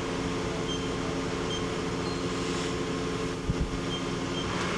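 Steady hum of a Mori Seiki NLX-2500SY CNC turning center running while its Y axis travels, the axis move itself nice and quiet. A single low thump about three and a half seconds in.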